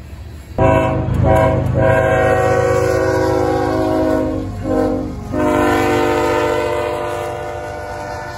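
Diesel locomotive's air horn sounding a chord of several steady tones over the low rumble of a passing train. It starts about half a second in, breaks briefly twice about four and a half and five seconds in, then holds a long last blast that slowly fades.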